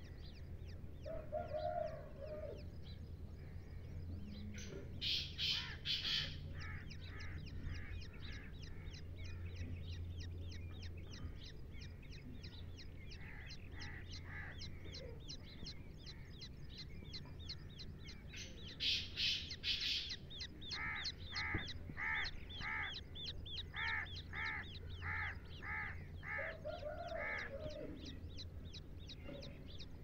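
Partridge chicks peeping: a near-constant run of fast, thin, high peeps. Louder shrill calls come in two short clusters, about five and nineteen seconds in. A series of evenly spaced louder calls, about two a second, runs near the end. A steady low hum lies underneath.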